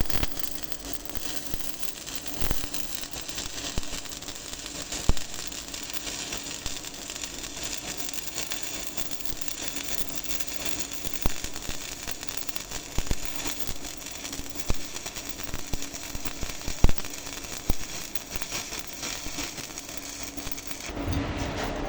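Stick (SMAW) welding arc burning, a steady frying crackle with frequent sharp pops, which stops shortly before the end.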